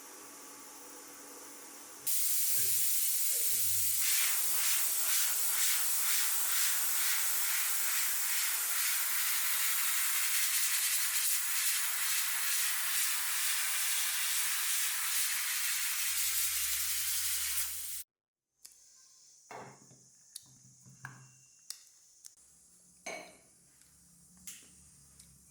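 Food frying in hot oil: a loud, steady sizzle that starts suddenly about two seconds in and cuts off abruptly later on. After it come a few light clicks and knocks of kitchen utensils.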